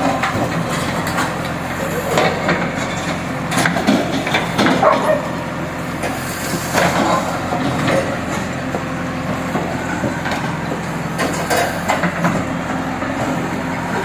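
Diesel engine of a demolition earthmover running steadily, with scattered knocks and clatter of debris. People talking in the background.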